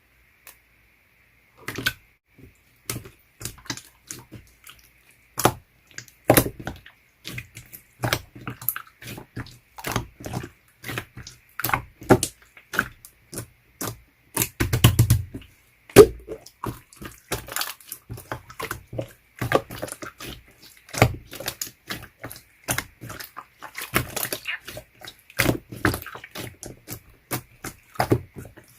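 Clear slime being squished and poked, making irregular sticky clicks and pops that start a couple of seconds in.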